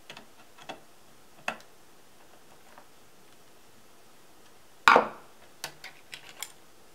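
Hands handling the plastic parts of a toy RC car's battery compartment: scattered small clicks and taps, with one louder knock about five seconds in followed by a few quick clicks.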